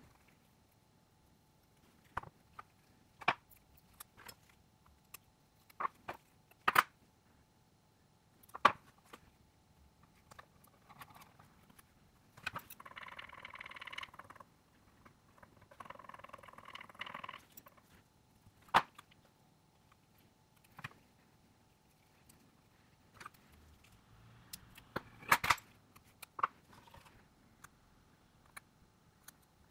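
Sharp clicks and taps of small tools and phone parts being handled during a smartphone teardown, with two short stretches of scratchy scraping a little before and just after the middle, and a quick cluster of clicks near the end.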